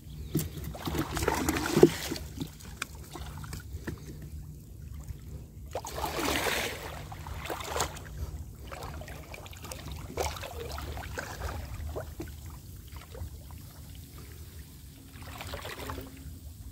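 Water sloshing and splashing as a person wades waist-deep and hauls a fishing net through a weedy pond, louder at about a second in and again around six seconds in, over a low steady rumble.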